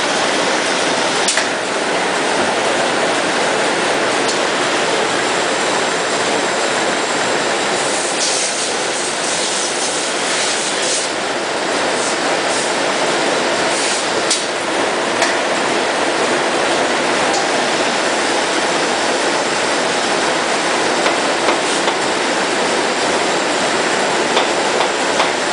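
Rotary tablet press running steadily as it compresses chicken bouillon powder into cubes: a continuous, even mechanical noise with a few scattered clicks.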